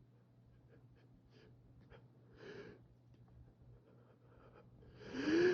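Quiet breathing between sneezes in an allergy sneezing fit, with a short breath about two and a half seconds in. Near the end comes a loud gasping intake of breath, rising in pitch, as the next sneeze builds.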